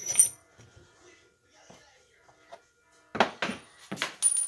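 Homemade pallet-wood wheels being handled and set down on a wooden workbench: a clatter at the start, then a quick run of wooden knocks and clunks about three seconds in.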